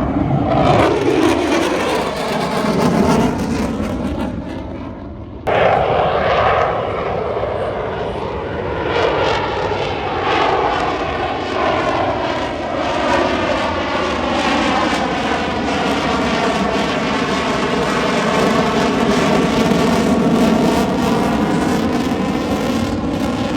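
Aircraft flying past overhead: a loud, steady engine rush whose tone sweeps and phases as it passes. About five seconds in, the sound dips and then jumps back abruptly.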